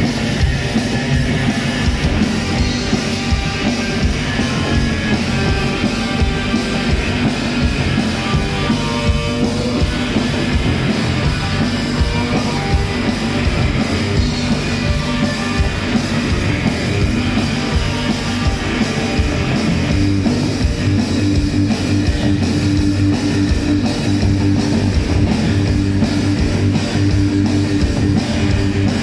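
Rock trio playing live and loud: electric guitar, bass guitar and drum kit together in an instrumental passage.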